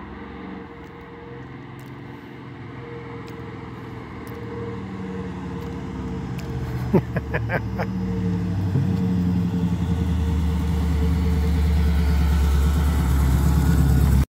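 1970 AMC Gremlin's 360 V8 engine driving toward the microphone, growing steadily louder as the car approaches and comes alongside. About halfway through there is a brief crackle and a dip in the engine note before it builds again.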